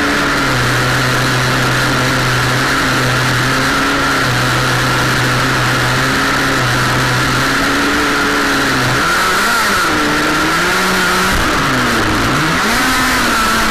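Radio-control jersey skiff model boat's motor running under way, picked up by a camera on the boat's deck along with a constant rush of water and wind. Its pitch holds fairly steady at first, then rises and falls several times in the last few seconds as the throttle changes.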